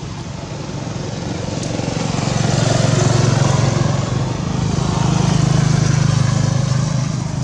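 A motor vehicle passing: a steady low engine hum that grows louder from about two seconds in and fades near the end.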